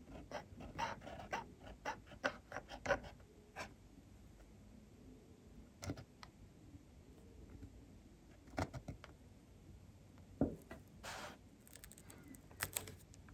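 Graf von Faber-Castell Classic fountain pen nib scratching on paper in quick cursive strokes for the first few seconds. After that come only a few separate ticks and short scratches as the pen dots and crosses the finished word.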